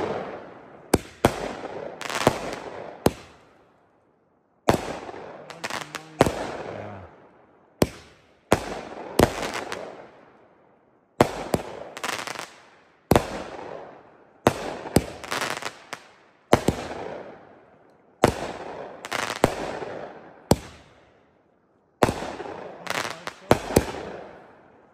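Consumer firework cake with brocade-to-red-mine effects firing shot after shot. A sharp bang comes every second or two, each trailing off in a fading crackle, with a couple of brief pauses between volleys.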